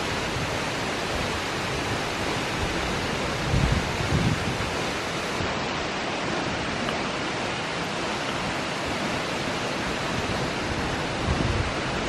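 Waterfall plunging into its pool, a steady rushing wash of falling water. A few brief low thumps on the microphone come about three and a half to four seconds in and again near the end.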